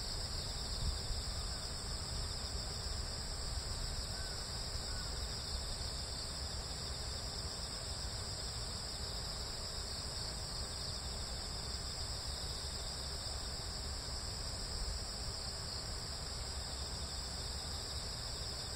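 Steady high-pitched chorus of insects such as crickets, continuous and unchanging, over a low rumble.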